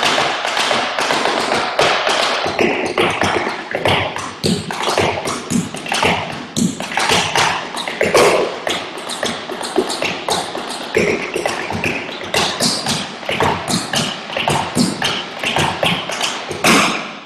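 Tap shoes on a wooden tap board: a fast, continuous run of taps from a tap combination built on shuffles and rolls, stopping abruptly at the end.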